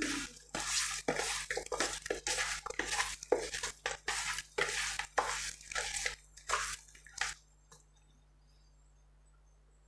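Wet squelching and slapping of a hand kneading raw chicken pieces in a wet spice-and-lemon marinade in a plastic bowl, in quick irregular strokes. It stops about seven seconds in.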